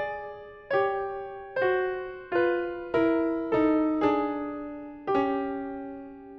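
Piano score playing a slow line of about eight single notes stepping downward in pitch, each struck and left to ring, the last one held and fading.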